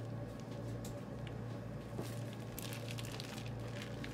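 Plastic piping bag crinkling as it is squeezed to pipe strawberry whipped-cream filling, soft crackles and clicks that thicken about two and a half seconds in, over a steady low hum.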